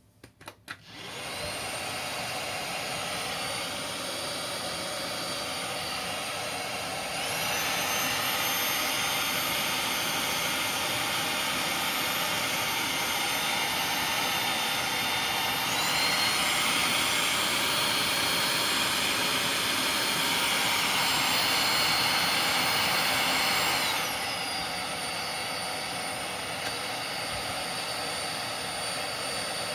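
iRoom RS1 cordless stick vacuum switched on after a few clicks, its motor spinning up to a steady high whine. It steps up to a higher, louder power mode about seven seconds in and again about sixteen seconds in, then drops back to a lower mode about twenty-four seconds in.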